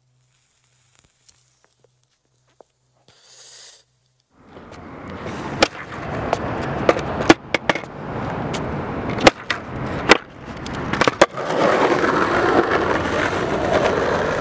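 Skateboard wheels rolling on rough concrete after about four seconds of near silence. The rolling grows steadily louder, broken by several sharp clacks.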